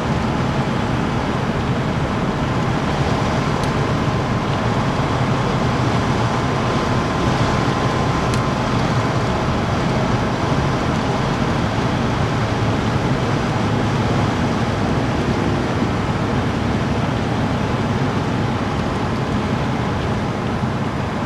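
Steady driving noise inside the cabin of a 1983 Jaguar XJ6: its six-cylinder engine running at an even cruise, mixed with road noise.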